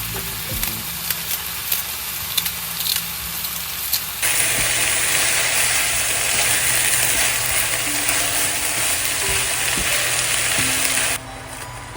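Beef bulgogi frying in a pan: a steady sizzle with light clicks of stirring. About four seconds in the sizzle becomes much louder and denser, and it cuts off sharply about a second before the end.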